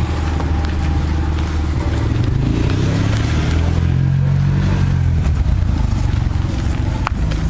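Engine of road-repair machinery running steadily, its pitch rising and then falling back over a few seconds in the middle.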